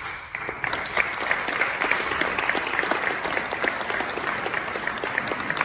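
Audience applauding in a stone church, the clapping starting suddenly and carrying on steadily.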